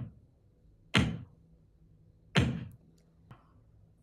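A hand striking a wooden tabletop to make bass thump sound effects. There is a thump right at the start, another about a second in, a third about a second and a half later, and a faint tap near the end.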